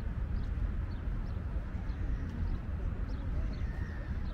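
Outdoor riverside ambience while walking: a steady low rumble with faint short bird chirps scattered throughout.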